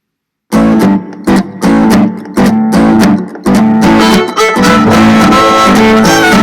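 Instrumental intro of an upbeat children's dance song, led by strummed guitar with a steady beat. It starts abruptly about half a second in, after silence.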